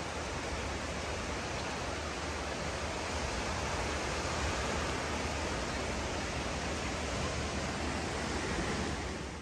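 Jeongbang Waterfall pouring, a dense, steady rush of falling water.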